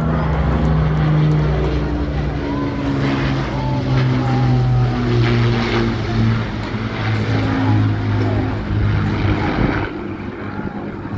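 Propeller aircraft flying past with its engine note held steady and slowly falling in pitch as it goes by.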